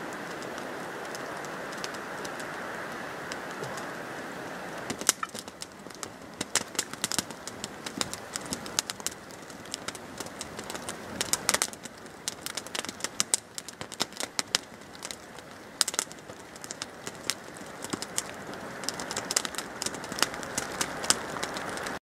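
A steady hiss for the first few seconds, then a wood campfire crackling with many irregular sharp pops and snaps.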